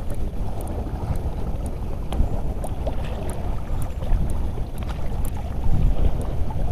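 Wind buffeting the microphone over choppy seawater, a steady low rumble with water sloshing, and faint scattered ticks throughout.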